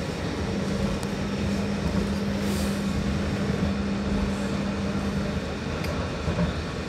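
A BN coast tram running along the track with a steady rumble. A steady low hum sets in about half a second in and stops about five seconds in, and a few faint clicks come near the end.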